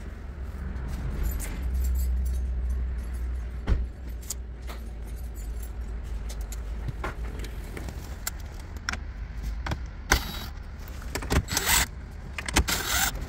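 Cordless drill/driver backing out the radio's 7 mm mounting screws in three short bursts near the end. Before them come scattered clicks and small rattles of tools and parts being handled.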